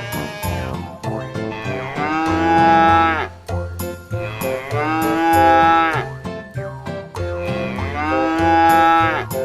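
Three long cow moos, each lasting about a second and a half and dropping in pitch at the end, over background music with a steady beat.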